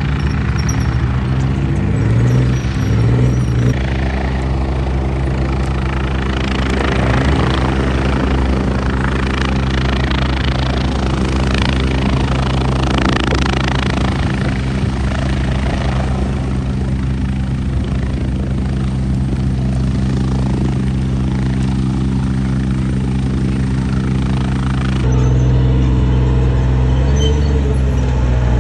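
Light helicopter flying low overhead: a steady rotor and engine sound, noisier and pulsing for a stretch in the middle. About three seconds before the end it gives way to a steadier, deeper engine drone.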